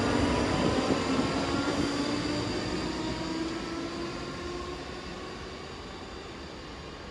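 Class 334 electric multiple unit moving away, its traction motors whining over wheel rumble on the rails. The whine falls slightly in pitch and the whole sound fades steadily as the train recedes.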